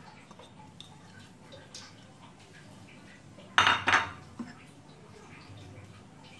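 Kitchen bowls and dishes clattering: two quick clinks close together about three and a half seconds in, followed by a smaller knock.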